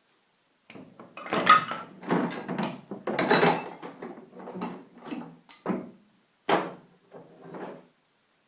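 Metal lathe tooling and accessories being rummaged through and lifted out of a box: an irregular run of clattering knocks and scrapes with brief metallic ringing, loudest about a second in and again about three seconds in.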